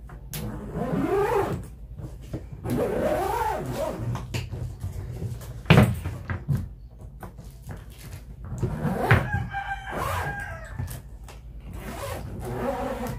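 A rooster crowing several times, each crow a drawn-out call rising and then falling in pitch. Also one sharp knock about six seconds in, as the hard-shell suitcase is handled.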